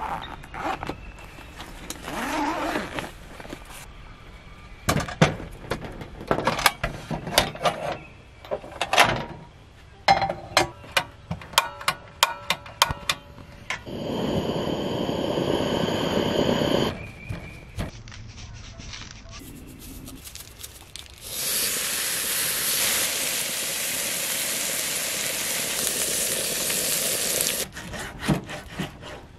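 Camp cooking on a Jetboil gas stove. First comes a long run of clicks and clatter of utensils and cookware, then the burner runs steadily for a few seconds. Near the end, meat fries in a pan with a loud steady sizzle for several seconds, followed by a few knocks of a knife and fork on a cutting board.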